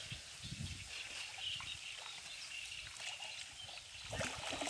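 Quiet outdoor ambience: faint, steady high chirping in the background, with a few low knocks near the end.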